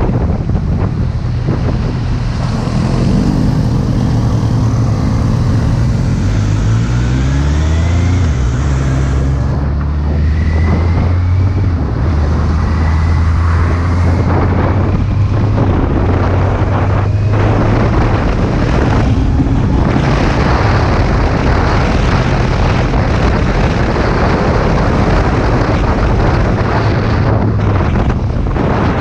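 Kawasaki Z800 motorcycle's inline-four engine running under way, heavily masked by wind rushing over the microphone. The engine note falls and shifts over the first several seconds, then holds steady at cruising speed.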